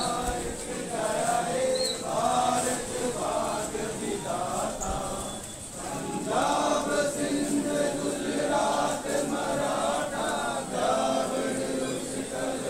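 A crowd of people singing together in phrases a second or two long.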